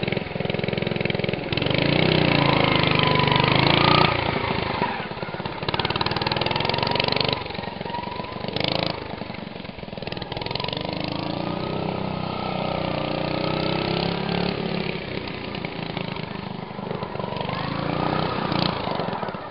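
Racing lawn mower engines running hard and revving, their pitch rising and falling again and again as the mowers race past; loudest about two to four seconds in.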